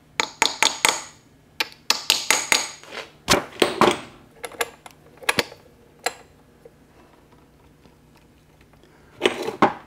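A hammer tapping steel transmission parts, driving the fifth-speed synchronizer slider and fork into place. It opens with a quick run of about five ringing metallic taps, then scattered clinks and knocks as the parts are worked, and a last cluster of clinks near the end.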